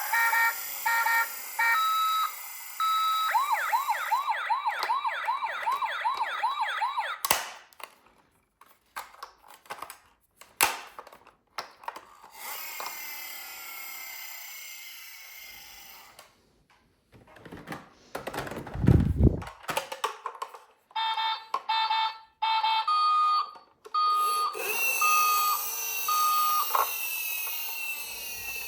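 Toy emergency vehicles' electronic sirens: short beeps alternating between two pitches, then a fast warbling yelp for about three seconds. After a stretch of clicks and knocks and a low rumbling thud, the two-pitch beeping starts again.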